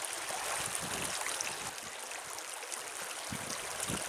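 Mountain stream running over rocks, with hands sloshing and splashing in the shallow water close by, most strongly near the end.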